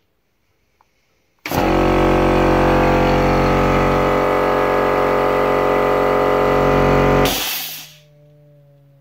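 Wallmek air-driven hydraulic pump starting suddenly and running steadily for about six seconds, a loud whine with air hiss, while it pushes out the 22-tonne hydraulic cylinder's ram. It stops with a brief rush of air, leaving a faint hum near the end.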